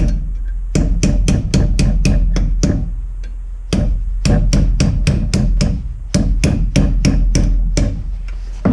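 Quick, regular hammer taps on a pick or punch, about four or five a second in three runs with short breaks, driving the stuck pad-retaining pins out of an old Subaru four-piston brake caliper.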